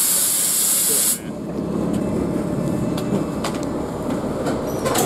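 City bus's air system letting off a loud, high hiss that cuts off suddenly about a second in, followed by the bus engine idling with a low rumble and a few light clicks.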